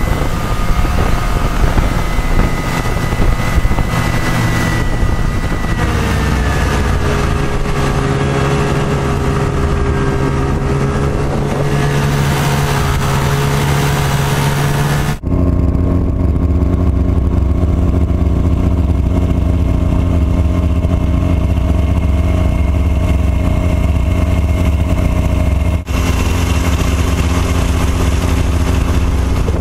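A vehicle engine running steadily under way, its pitch easing down about six seconds in. Halfway through the sound cuts off abruptly and gives way to a lower, steadier engine drone, with a second brief cut near the end.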